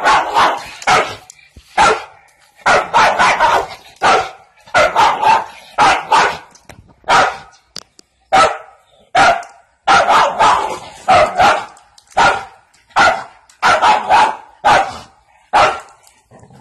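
Dog barking over and over: short, sharp barks, often in quick runs of two or three, about two a second.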